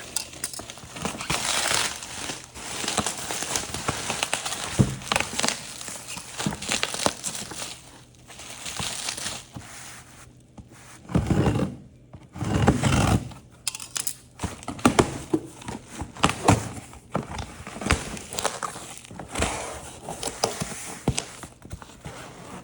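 Parcel packaging being unwrapped by hand: irregular crinkling and rustling of wrapping, with short tearing sounds and a few knocks from the box being handled about halfway through.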